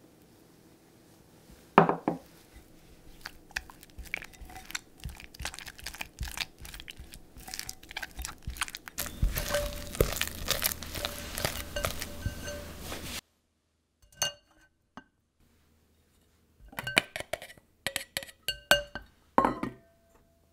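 Silicone spatula mixing egg white into thick creamed butter batter in a glass bowl: a knock, then rapid wet scraping and slapping that grows busier and louder before stopping abruptly. Then a few short ringing clinks of metal on glass as a mesh strainer is set on the bowl.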